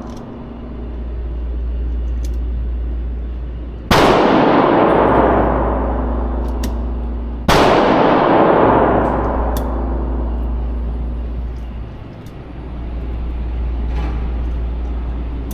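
Two pistol shots about three and a half seconds apart, each with a long echoing tail that fades over a couple of seconds, over a steady low hum.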